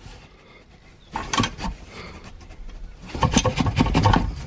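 Hand ratchet clicking as a socket winds the oil sump drain plug back in: a short run of clicks about a second in, then a longer, louder run of rapid clicks from about three seconds in.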